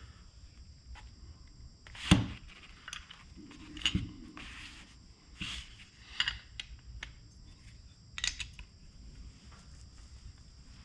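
Scattered metallic clicks and knocks of a nut driver and open-end wrench on a small nitro engine's clutch nut and flywheel as the nut is cranked down tight, the loudest knock about two seconds in.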